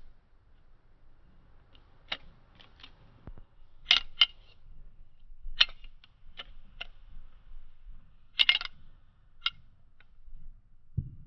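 Balisong handles clicking and clacking as the butterfly knife is twirled: about a dozen sharp, irregular clicks, several of them loud, with a soft thump near the end.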